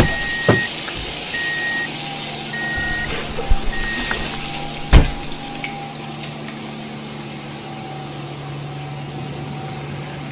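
Truck engine running steadily with a reversing alarm beeping four times in the first few seconds, over a hiss. A few knocks, the loudest about five seconds in.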